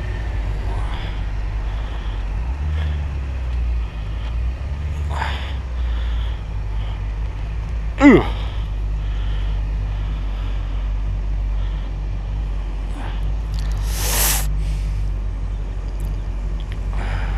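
Motorcycle engine running low and steady as the bike turns around. About eight seconds in, a brief loud sound slides sharply down in pitch, and a short hiss comes near fourteen seconds.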